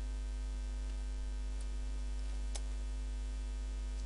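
Steady electrical mains hum in the recording, a low buzz with a row of steady overtones, and a faint click about two and a half seconds in.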